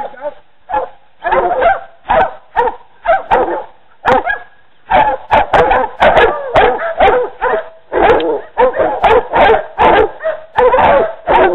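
Several hog dogs baying: short, separate barks that thicken into rapid, overlapping barking about five seconds in, with some yips mixed in.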